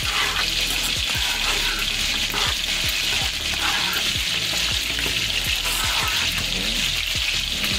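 A spoon stirring cooked rice and red beans together in a saucepan, scraping and knocking irregularly against the pan, over a steady sizzling hiss.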